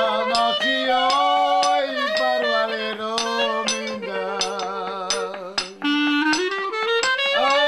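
A man singing a folk song with a clarinet playing along, the clarinet's line wavering and ornamented. A sharp tapped beat runs under them, about three or four taps a second.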